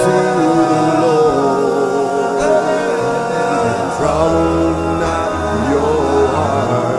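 A cappella gospel singing by a layered male vocal group, a lead line over held chords sung by the other voices, with no instruments. A deep low part comes in about four seconds in and holds for a couple of seconds.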